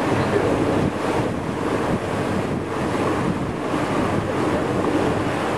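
Steady wind noise on the microphone over the wash of sea water around a boat.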